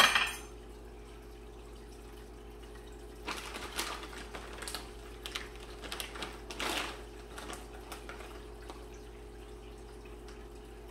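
Light rustling and handling noises as soft tacos are put together on a kitchen counter, a few scattered soft rustles over a steady low hum. A short knock sounds right at the start.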